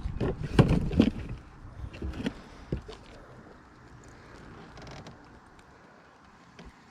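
A quick series of knocks and thumps, the loudest about half a second to a second in, dying away after about three seconds into faint handling noise.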